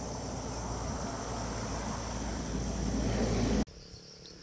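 Steady vehicle and road noise with a low rumble, growing a little louder and then cutting off abruptly near the end.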